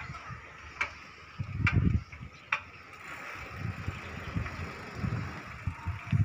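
Riding a bicycle with a wire-mesh front basket along a paved street: wind buffeting the microphone in uneven gusts over steady tyre-and-road hiss, with three sharp clicks or rattles in the first few seconds.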